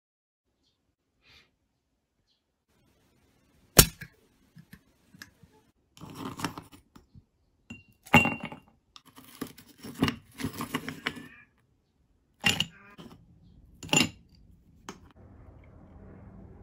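Ice cubes set into an empty drinking glass with tongs, clinking sharply against the glass and each other, several loud clinks with softer rattling of ice between them, starting a few seconds in.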